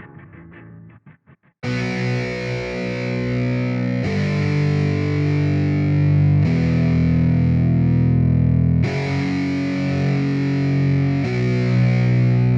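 Background rock music: a quieter pulsing passage dies away, then about one and a half seconds in, heavily distorted electric guitar chords come in loud, changing chord every couple of seconds.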